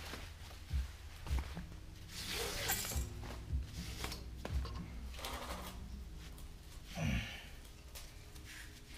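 Damp fiberglass exhaust heat wrap rustling and scraping in several short bursts as gloved hands pull it tight and wind it around a Harley-Davidson Iron 1200's exhaust pipe, over faint background music.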